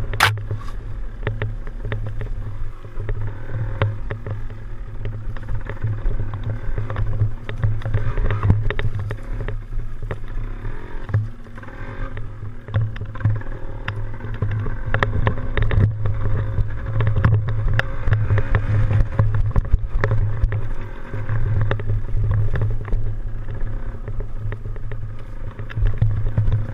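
Yamaha DT175 dirt bike's single-cylinder two-stroke engine running under way, with wind rumbling on the microphone and frequent short knocks. The level swells a little around the middle.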